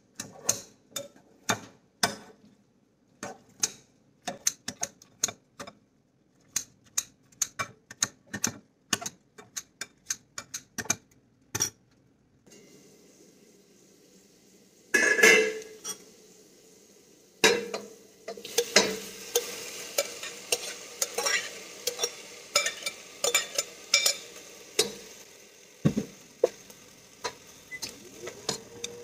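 Metal blades snipping boiled banana flower in a glass bowl, irregular sharp clicks about one or two a second. About twelve seconds in, oil starts sizzling in a stainless steel pot, with a louder burst a few seconds later; after that a metal spatula scrapes and clinks against the pot as the contents are stirred over the sizzle.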